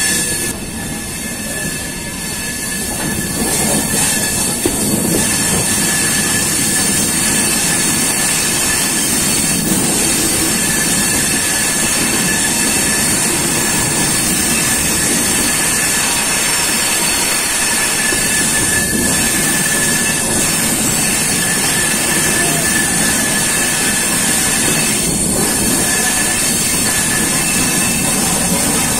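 Indian Railways express train coaches running along the track, heard from an open coach doorway: a steady rumble of wheels on rail with a thin, steady wheel squeal on the curve above it.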